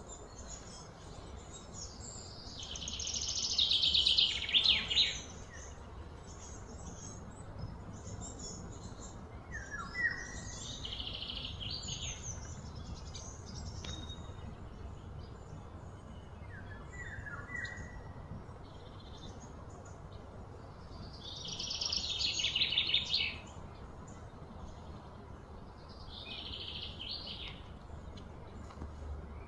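Outdoor ambience of high, rapid trilling calls: two loud bursts of a couple of seconds each, a few seconds in and about 21 seconds in, with fainter trills and a few short chirps between.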